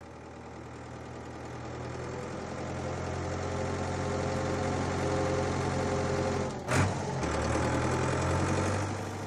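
Tractor engine sound effect running steadily, growing louder over the first few seconds, with one short, loud thump about two-thirds of the way through.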